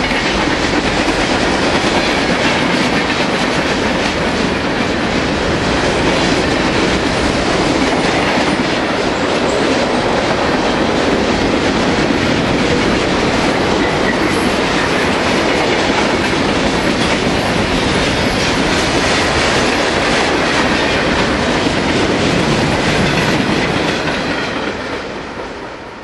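Freight train's cars rolling past, a steady rumble of steel wheels on rail with rapid clickety-clack over the rail joints. The sound fades out near the end.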